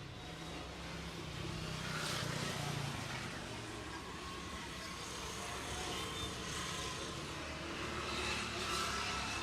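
Road traffic going past, the noise swelling as vehicles pass about two seconds in and again near the end.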